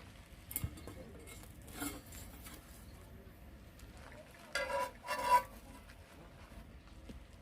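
Cutlery and dishes clinking and scraping during a meal, with two louder ringing clinks about four and a half and five and a half seconds in.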